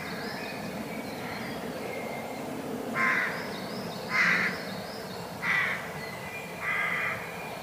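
A raven calling four times, harsh caws roughly a second apart starting a few seconds in, over faint high chirping of small songbirds.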